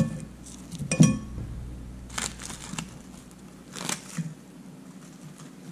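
A metal fork clinks against a ceramic plate twice in the first second, the second clink ringing briefly. Then come two crackling rustles as the charred paper bag and burnt fish skin around a roasted salt cod are picked apart, about two and four seconds in.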